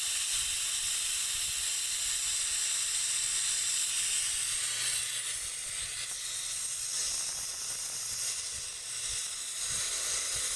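Pressurised gas hissing steadily out of a refrigerator evaporator's tubing as it is flushed, blowing the last oil out of the coil. The hiss dips briefly near the end.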